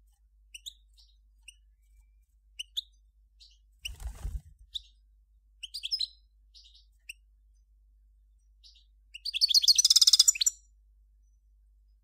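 European goldfinch singing: scattered short, high twittering notes, then a loud rapid trill about nine seconds in that lasts around a second and a half. A low thump comes about four seconds in.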